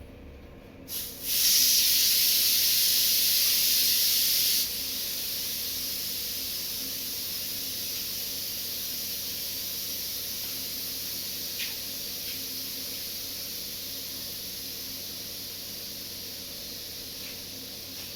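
Steady hissing noise that starts abruptly about a second in. After a few seconds it drops to a quieter steady hiss that slowly fades.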